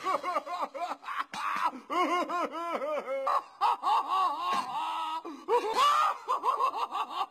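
Patrick Star's cartoon voice laughing hard, a long run of 'ha-ha-ha' at about four laughs a second.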